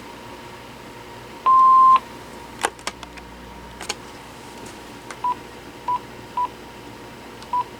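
Panasonic cordless phone handset beeping as its keys are pressed: one longer beep of about half a second, a few sharp clicks, then four short key beeps at the same pitch spaced across the second half.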